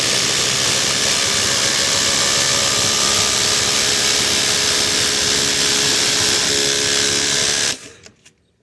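Two cordless impact drivers, a Makita XDT14 and a Flex FX1371A, hammering together on speed 3 as they drive 5-inch ledger screws. The impacting is loud and steady, then cuts off abruptly about a second before the end.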